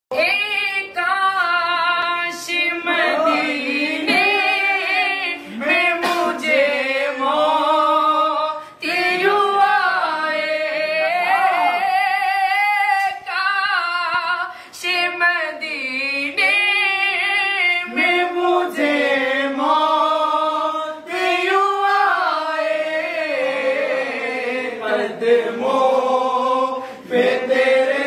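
Male voices singing an Urdu naat, a devotional song in praise of the Prophet, without instruments: a lead voice with a group joining, in long, sliding, ornamented melodic lines.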